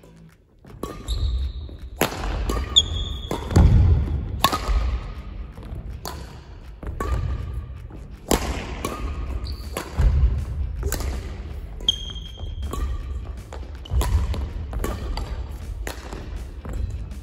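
Badminton singles rally: sharp racket hits on the shuttlecock, heavy footfalls on the court floor and short high shoe squeaks, in quick irregular succession.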